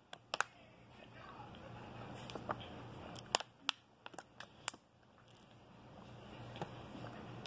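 Drinking from a plastic water bottle: scattered sharp clicks and crackles from the bottle and mouth, most of them near the middle, over a faint low hum.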